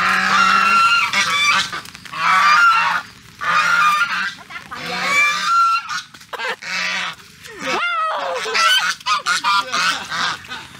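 White domestic geese honking loudly and repeatedly in bouts, several calls close together with short pauses between them.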